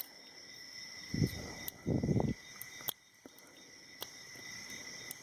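A few small sharp metal clicks and two short scrapes as a thin steel stick knife is worked into a padlock beside the shackle to push back the locking pawl. A steady high-pitched background tone runs underneath.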